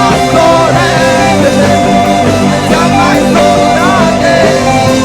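Live worship band music between sung lines: sustained chords over a steady bass, with brief wordless vocal lines from the singer.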